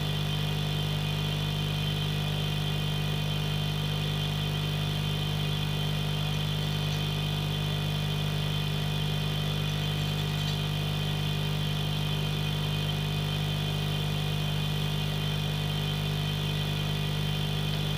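Steady, unchanging machine hum made of several fixed tones, strongest low down, from electrical bench equipment running at the repair bench.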